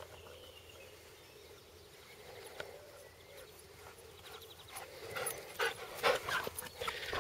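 A Weimaraner bounding up close with a stick in its mouth: quick irregular footfalls on grass and breathing. They are faint at first and grow louder from about halfway through as the dog arrives.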